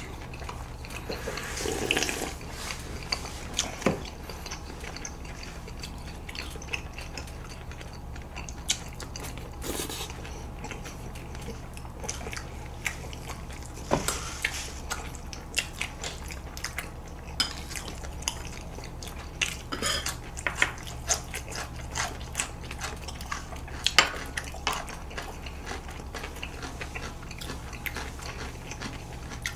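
Mealtime eating sounds: spoons and chopsticks clicking against ceramic bowls and plates, with wet slurps and sips of noodles and soup. The clicks come often and irregularly, with a few longer slurping stretches, one about two seconds in.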